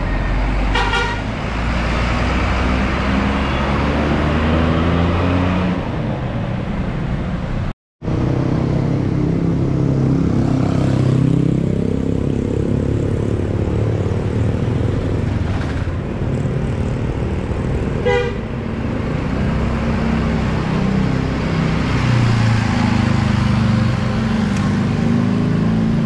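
Tour bus telolet horns, multi-tone air horns, playing tunes in quick stepped notes over bus engines and road traffic.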